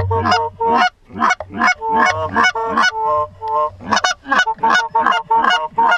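Goose honks and clucks in a quick, loud run, about three or four calls a second, with a low hum underneath.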